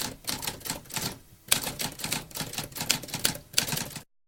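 Typewriter keys clacking in a rapid, uneven run of strikes, with a short break about a second in, cutting off suddenly near the end.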